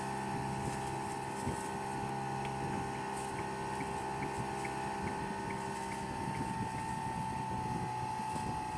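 Engine of a small fibreglass fishing boat running steadily underway, a constant even drone.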